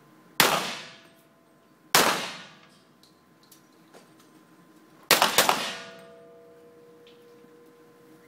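Centerfire pistol shots echoing in an indoor range hall: a single shot, another about a second and a half later, then a rapid cluster of several shots about three seconds after that. Each shot has a long reverberant tail, and a faint metallic ringing lingers after the cluster.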